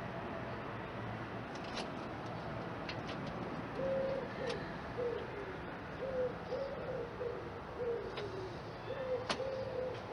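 A pigeon or dove cooing: a series of short, low coos, some dropping in pitch, starting about four seconds in and repeating steadily, with a few faint clicks.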